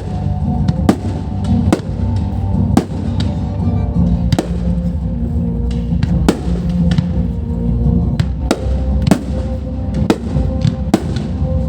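Fireworks going off: about ten sharp bangs at irregular intervals, roughly one a second, over a continuous low rumble. Music with steady held tones plays underneath.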